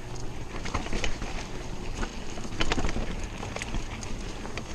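Mountain bike ridden fast down a dirt singletrack: steady tyre and wind noise on the microphone, with scattered sharp knocks and rattles as the bike goes over bumps, loudest a little under three seconds in.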